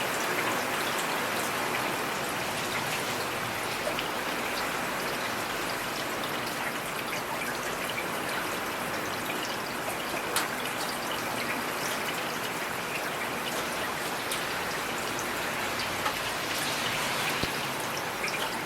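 Steady rainfall, a constant hiss dotted with individual drops ticking on nearby surfaces, a few of them louder single taps.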